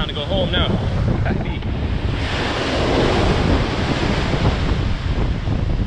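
Strong wind buffeting the microphone on the open sea front, with a louder rushing noise swelling from about two seconds in and easing off a couple of seconds later.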